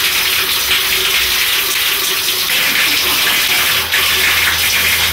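Shower running steadily, its spray of water hissing and splashing onto the tiled wall and floor.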